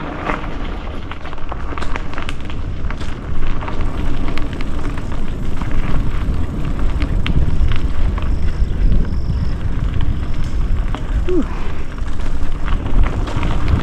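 Mountain bike riding down a dirt trail: wind buffets the microphone in a heavy, uneven rumble, with frequent sharp clicks and rattles from the bike bouncing over the ground.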